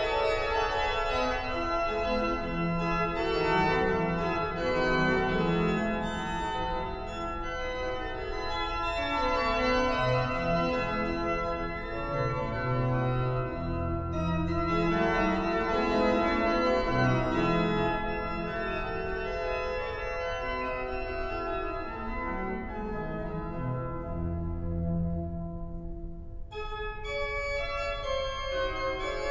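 Gottfried Silbermann's 1714 Great Organ playing a slow polyphonic passage of sustained chords over a moving bass line. Near the end the upper notes fade out and a brighter chord comes in sharply.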